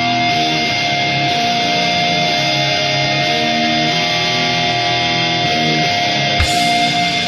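Post-hardcore rock music: electric guitars play chords that change about once a second under one high note held throughout. There is a single brief click about six seconds in.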